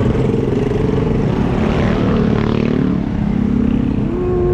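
Street traffic: vehicle engines running, one falling in pitch as it passes about two to three seconds in. A steady held tone sounds for about a second near the end.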